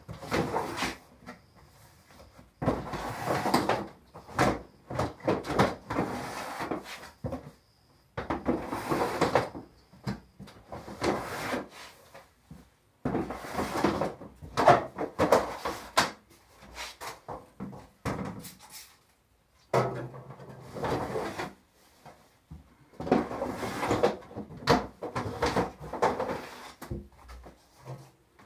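Plastic fodder trays being slid along and pulled from wooden shelving and set down: irregular scraping and clunking in bursts with short pauses between.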